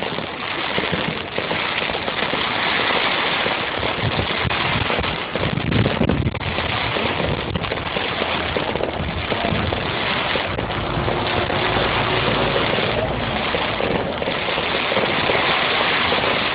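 Fireworks going off continuously: a dense crackle of many small reports, with a heavier low boom about five to six seconds in.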